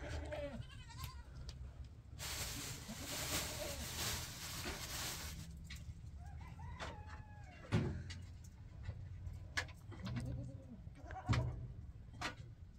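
Goats bleating several times, with a few sharp knocks and clinks of pots and a hiss lasting about three seconds, starting about two seconds in.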